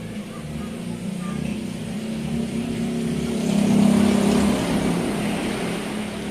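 A motor vehicle's engine running with road and wind noise, growing louder about halfway through and then easing off.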